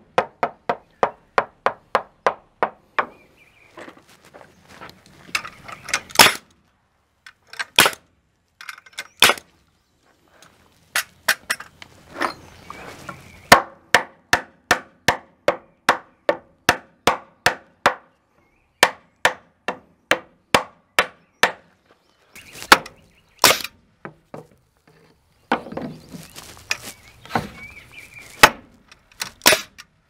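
Nails being driven into wooden floor joists: runs of sharp hammer strikes, about three to four a second, stopping and starting several times, with a few single louder, sharper shots of a pneumatic framing nailer between them.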